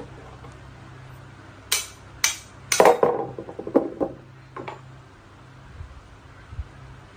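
Metal tools or parts being handled: three sharp knocks, then a quick run of ringing clinks, over a steady low hum.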